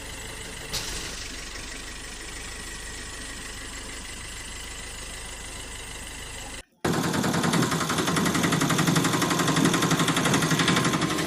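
A steady faint hum with a single click about a second in. After a short cut comes a loud, fast rattling buzz like a small motor driving gears, lasting about four seconds.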